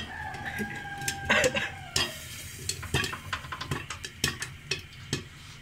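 Popcorn kernels popping in hot oil inside a lidded aluminium pot on a gas flame: scattered, irregular "pat pat" pops against the lid over a faint sizzle.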